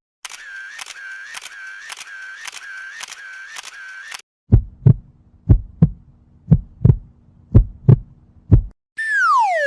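A run of stock sound effects. First a pulsing, wavering buzz repeats about twice a second for around four seconds. Then a heartbeat of double thumps, about one a second, five beats over a low hum, and near the end a falling whistle-like glide.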